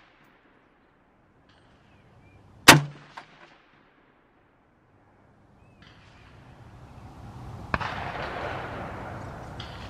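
A single PSA JAKL rifle shot about three seconds in, with a short echo after it. Later a rushing noise slowly builds up.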